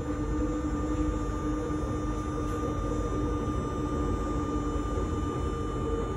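RER D commuter train running at speed, heard from inside the carriage by the doors: a steady low rumble of wheels on rail, with a few faint steady tones over it.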